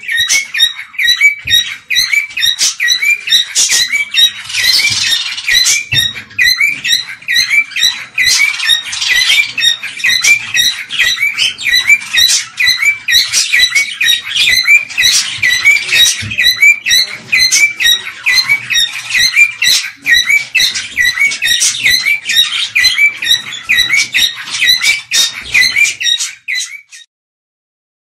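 Cockatiels calling: a loud, steady run of short, repeated high calls that stops suddenly about a second before the end.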